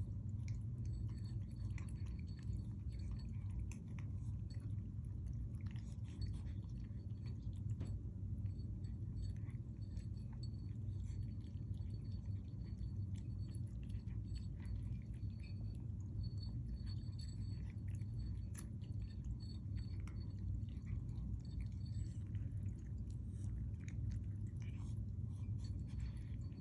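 A British shorthair cat and a lynx point Siamese kitten eating side by side: irregular crunching of dry kibble and wet-food chewing, heard as many small clicks over a steady low hum.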